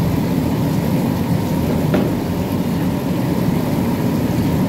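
Steady low rumble of running bakery machinery, unchanging throughout, with a single short click about two seconds in.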